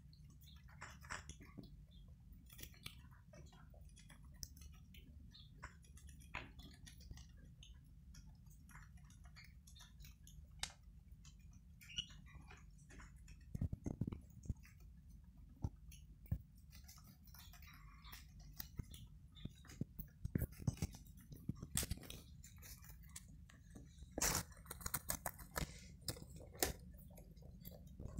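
Guinea pigs chewing lettuce leaves: irregular soft crunching and crisp little clicks, busier near the end, over a faint steady low hum.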